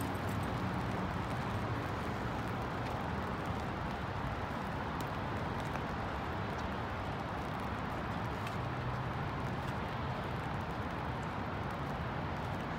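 Rainy city ambience: a steady hiss of rain and wet-road traffic with a low rumble of passing cars, and a few faint ticks.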